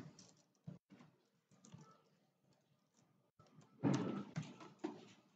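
Typing on a computer keyboard: scattered light key clicks, with a louder burst of sound about four seconds in.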